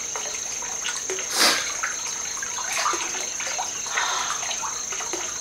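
Bathwater lapping and splashing softly in a wood-fired bathtub as a bather moves her hands and shifts in the water, with one louder swish about one and a half seconds in.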